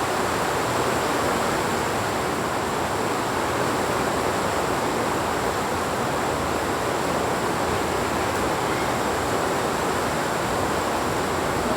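Steady heavy rain: a constant, even hiss of downpour with no separate drops or changes.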